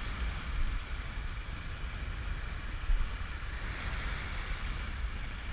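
Steady wash of sea water and surf, with wind buffeting the microphone as low rumble.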